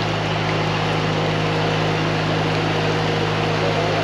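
An engine running steadily, with a constant low hum over an even wash of noise.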